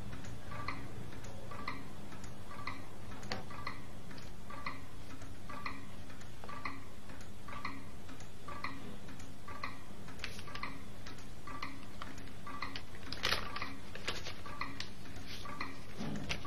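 Mechanical clock ticking steadily and evenly, with a few louder brief rustles or knocks about ten, thirteen and fifteen seconds in.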